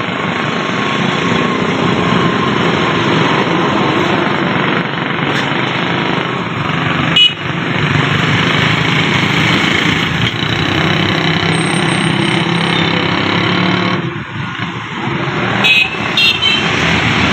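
Street traffic with motorcycle engines running close by, a steady loud noise. A sharp knock comes about seven seconds in.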